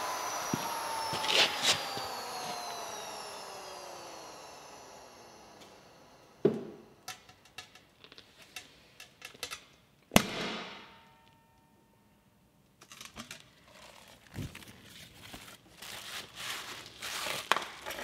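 A vacuum pump's motor winding down, its whine falling in pitch and fading over about six seconds. Then a few light clicks, a sharp crack about ten seconds in with a short hiss as air is let back into the vacuum chamber, and plastic crinkling and knocks as the lid comes off over bubble wrap.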